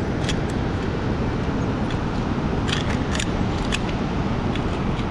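Zip-line harness hardware, metal clips and locks, clicking a handful of times as the harness is fastened, over steady outdoor background noise.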